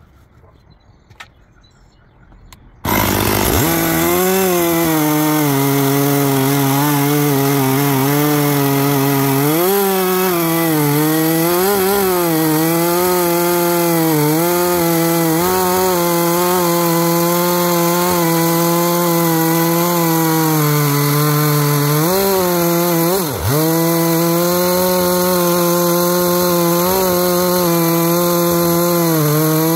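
Gas chainsaw at full throttle, ripping lengthwise through an applewood log. It comes in abruptly about three seconds in, after a quiet start with a few faint clicks. The engine note dips and recovers several times as the chain takes load, most deeply about 23 seconds in.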